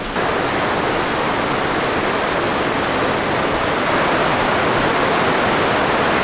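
Fast, turbulent glacial meltwater river rushing over rapids: a loud, steady rush of water that sets in abruptly just after the start.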